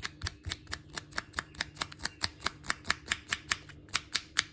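Short, rapid rasping strokes of 80 grit sandpaper as the trimmed end of a handmade float body is rubbed across it to round it off, about four or five even strokes a second.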